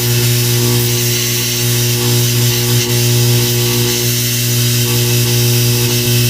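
Plasma cutter cutting through steel: a steady, loud electric buzz with a constant hissing of air and arc, unbroken except for a brief dip about three seconds in.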